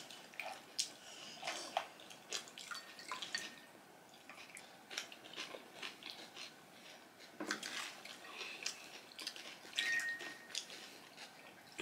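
Quiet scattered clicks, crackles and drips of crisp pani puri shells being cracked open and filled with a spoon over ceramic bowls.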